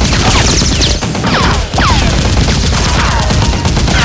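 Dubbed-in automatic gunfire sound effect: rapid shots in long volleys, laced with falling whistling whizzes, broken off briefly about a second in and again near the middle.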